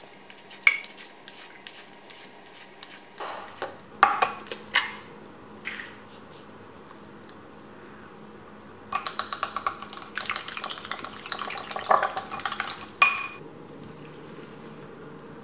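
Kitchen utensil sounds: scattered clinks and scrapes, then about four seconds of a small whisk beating egg against a ceramic bowl in rapid clicks, ending in one sharp clink on the bowl rim.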